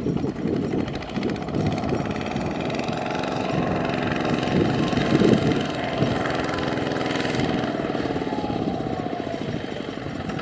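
Kubota RT155 walking tractor's single-cylinder diesel engine running steadily under load as it hauls a loaded trailer through paddy mud.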